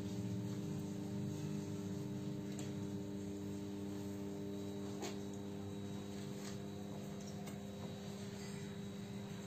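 Steady electrical hum made of several even tones, with a few faint ticks.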